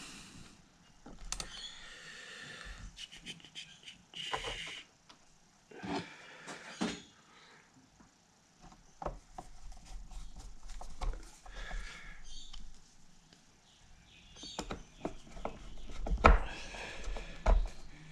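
Screws being driven into the bottom cover of a Technics SL-1200 MK2 turntable with a hand screwdriver: scattered clicks and knocks with short rasping scrapes.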